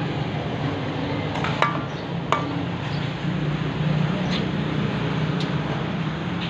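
Papaya leaves stir-frying in a wok with a steady sizzle, as a metal spoon stirs them and strikes the pan in a few sharp clinks. A steady low hum runs underneath.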